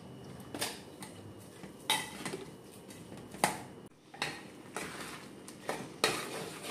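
Metal spoon clinking and scraping against a metal pot in scattered irregular knocks, as cooked chana dal is mixed with jaggery and sugar.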